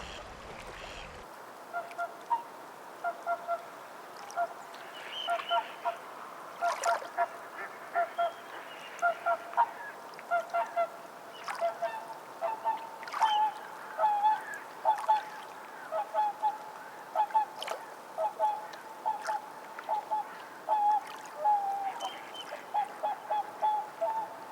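A flock of waterfowl calling: many short, repeated honking calls, often overlapping, starting about two seconds in, over a steady background noise.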